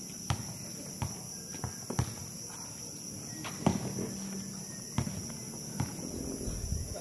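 A basketball bouncing and players' footsteps on an outdoor hard court: about seven sharp, irregularly spaced thuds, over a steady high insect trill.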